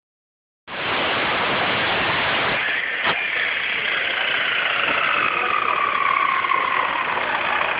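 Abrasive chop saw running and cutting metal stock, a loud steady grinding with a whine that falls slowly in pitch over the last few seconds and a single click about three seconds in.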